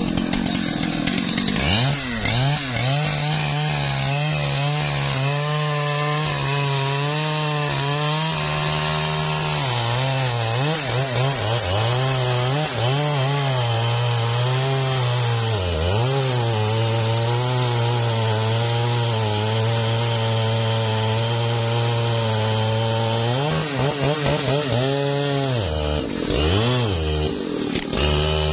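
Large Stihl two-stroke chainsaw running at high revs while cutting into the base of a thick rain-tree trunk. The engine note drops a little once the chain is well into the wood, dips briefly now and then, and revs up and down several times near the end.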